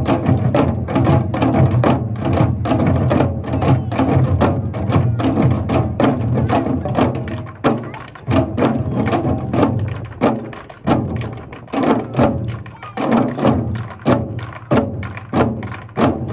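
Korean drums, janggu hourglass drums in nanta style, played by a group in a fast, driving rhythm of sharp strikes over a backing music track. The strokes thin out for a few seconds in the middle before picking up again.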